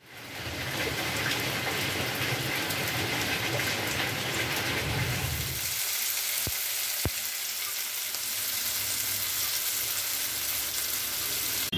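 Rain falling steadily for about the first half. Then food sizzling as it fries in a pan of hot oil, onions and green chillies among it.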